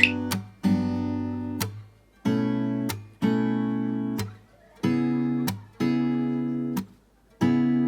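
Background music: an acoustic guitar strumming chords, each chord ringing for about a second and fading briefly before the next.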